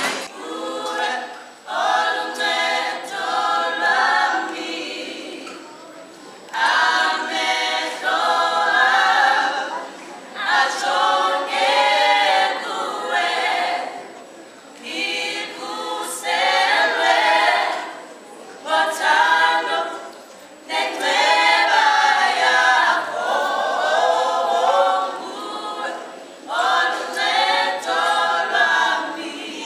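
A small vocal group singing unaccompanied in harmony, in phrases a few seconds long with short breaks between them.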